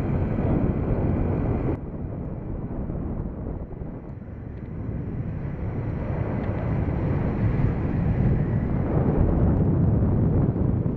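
Wind rushing and buffeting over the microphone of a camera riding on a moving bike, a low rumbling roar. It drops off suddenly about two seconds in, then builds back up as speed picks up.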